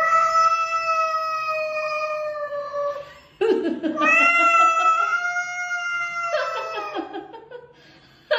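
A cat yowling: two long, drawn-out calls, the first about three seconds and nearly level, the second rising at its start and then held for over three seconds.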